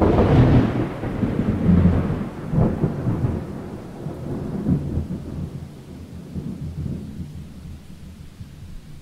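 Thunder: a sudden loud clap that rolls into a deep rumble, with several further rolls that fade away over the following seconds.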